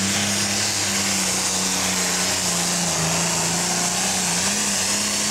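Pro stock pulling tractor's turbocharged diesel engine running flat out under full load as it drags the sled, with a steady high drone. Its pitch sags a little past halfway as the engine is pulled down, then recovers near the end.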